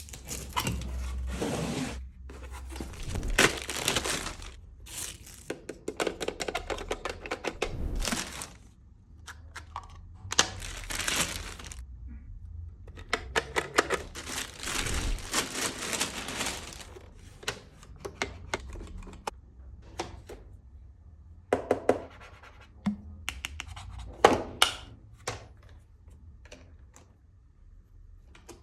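Packaging being handled and opened around a Xiaomi robot vacuum: bursts of tearing and crinkling, scratching, and sharp thunks and clicks as pieces are moved and set down.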